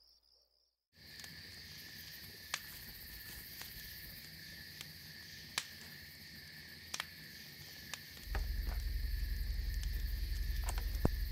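After about a second of silence, crickets chirring steadily at night, with scattered sharp pops from a wood campfire. About eight seconds in, a loud low rumble joins.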